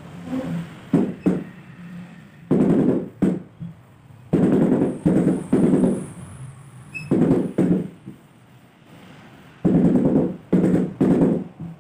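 Repeated scraping strokes of a trowel spreading tile mortar on a concrete countertop, each stroke about half a second to a second long, in groups with short pauses. A few short knocks come near the start.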